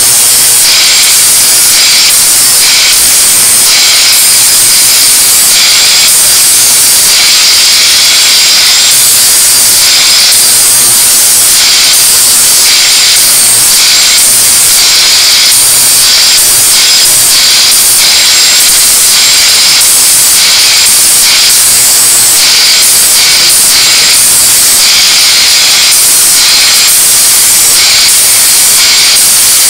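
Angle grinder grinding, a loud hiss that keeps dipping and coming back every fraction of a second.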